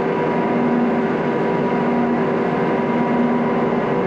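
Cattle feed mixer running, mixing a dry cow ration: a steady, loud machine drone with constant hum tones and no change in speed.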